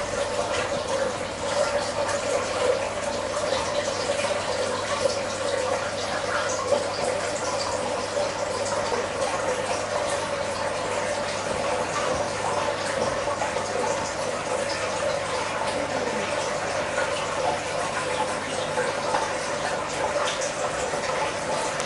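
Steady trickle of running water, with a faint low electrical hum under it.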